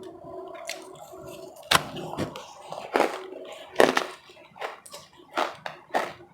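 Powdery ice being bitten and chewed close to the microphone: five sharp crunches, roughly one a second, between softer wet mouth sounds.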